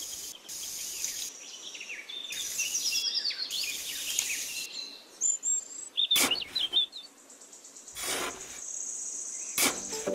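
A wooden stick and then a small hand trowel scraping and digging through sand, with a few sharper scrapes in the second half. Birds chirp over it, most in the first half.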